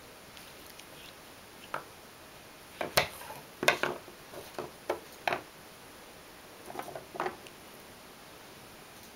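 A dry pruned kiwi branch knocking and scraping on a wooden floor as a cat bats and rolls on it. The sound is a string of irregular sharp taps and clicks: the loudest comes about three seconds in, a quick cluster follows, and a few softer taps come about seven seconds in.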